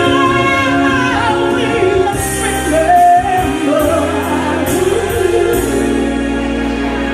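A woman singing live over steady accompaniment: a wordless, gliding vocal run that settles on a long held note about three seconds in.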